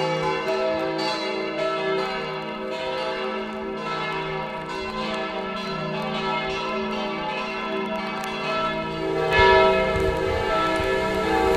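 Church bells ringing, several overlapping tones that swell and fade. About nine seconds in, a low rumble joins them.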